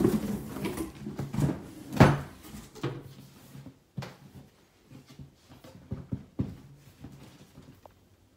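Cardboard boxes being handled: a shoe box slid out of a shipping carton, turned over and its lid opened, with scraping, rustling and irregular knocks, the loudest knock about two seconds in.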